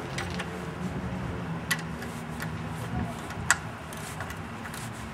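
A few sharp metallic clicks from a wrench working a bell housing bolt as it is turned down to draw the engine and transmission together, over a steady low hum.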